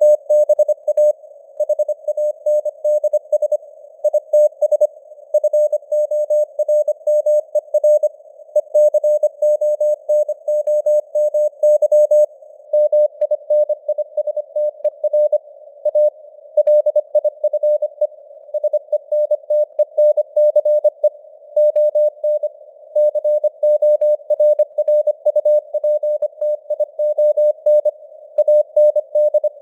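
Morse code sent as a single beeping tone at 25 words per minute, rapid dots and dashes with short gaps between letters and words. It sits in a narrow band of simulated radio hiss, and the signal strength varies slightly, as in a fading radio signal.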